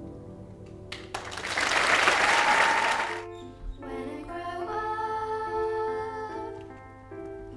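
Audience applauding for about two seconds, cut off abruptly, followed by a slow, gentle instrumental melody of held notes.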